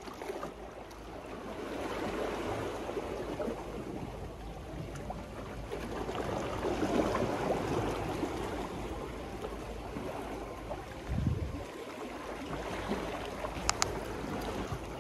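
Sea water washing and sloshing against a seawall, swelling and easing in waves. There is a short dull thump a little past the middle and a couple of sharp clicks near the end.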